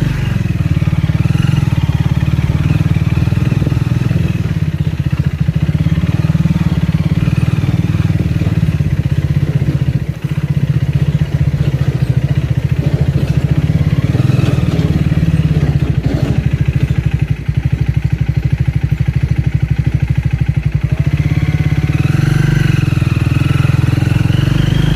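Triumph Speed 400's single-cylinder engine running steadily, with a fast, even exhaust beat. The sound dips briefly about ten seconds in and again near eighteen seconds.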